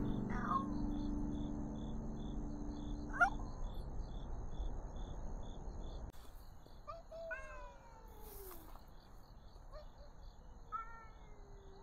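Cats yowling at each other in a territorial standoff: two short calls in the first few seconds, then from about seven seconds in, long drawn-out yowls that slide down in pitch, a tabby cat and a rival cat growling at each other. Crickets chirp in a steady pulse underneath.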